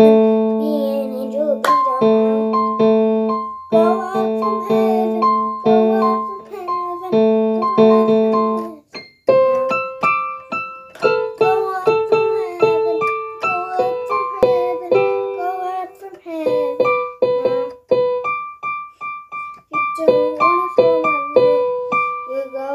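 Electronic keyboard music: held notes in a repeating pattern for about the first nine seconds, then a quicker melody of short notes.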